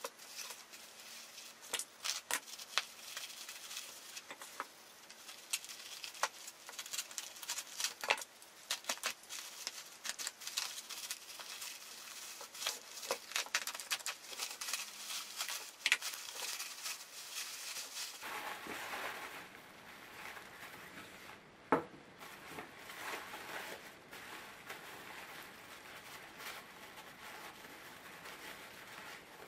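Plastic bubble wrap crinkling and rustling as it is slit open and pulled off by hand, with many scattered sharp crackles and clicks. The handling turns into a steadier rustle later on.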